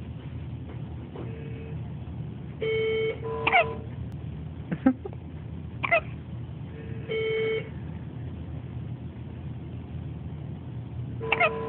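Hiccups that sound like a squeaky toy: about seven short, high squeaks spread across the stretch. A few are held on one pitch for about half a second, and the others are quick chirps that sweep in pitch.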